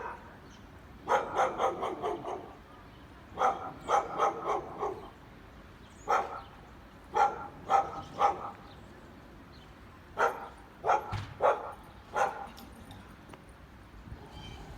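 Dog barking in repeated bursts of several quick barks, with pauses of a second or two between the bursts.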